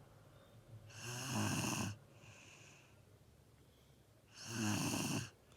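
Loud snoring from a deep sleeper: two rattling snores about three and a half seconds apart, each lasting about a second, with a softer breath out after the first.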